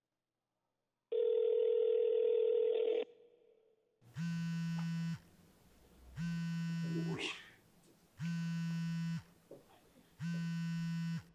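A telephone ringing tone heard down the line for about two seconds, then a mobile phone signalling an incoming call in four one-second buzzing pulses, about one every two seconds.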